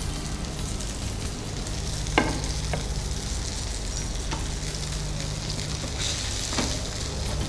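Stuffed fish sizzling steadily as it shallow-fries in oil in a flat pan. A sharp clink of a spatula against the pan comes about two seconds in, with a few lighter taps later.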